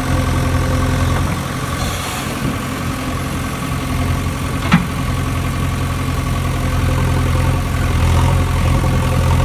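An engine idling steadily with an even hum, and a single sharp click a little under five seconds in.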